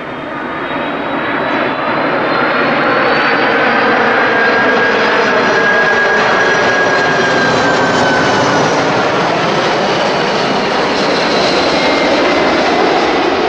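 Airbus A330 twin-jet airliner on final approach with gear down, passing low: loud steady jet engine noise that swells about a second in, with thin whining tones over it, one of which slides down in pitch in the middle.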